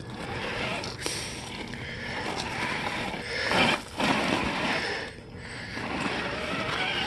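Traxxas TRX-4 Bronco RC crawler driving over loose decomposed-granite gravel: its small electric motor and gears whirring and its tires crunching, with a louder burst of crunching about halfway through and a faint rising motor whine near the end.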